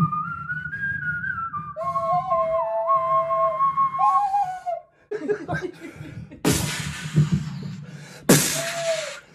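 A small ocarina playing a pure, whistle-like melody of held notes and short glides, over a man's vocal percussion into a handheld microphone. The melody breaks off about five seconds in, and two loud hissy bursts, each about a second long, come near the end.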